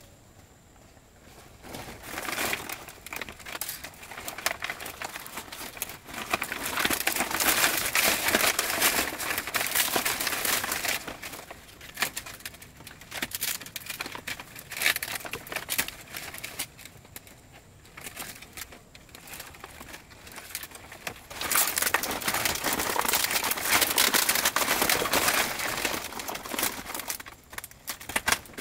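Dry leaves rustling and crackling in several long bouts, with quieter gaps between them.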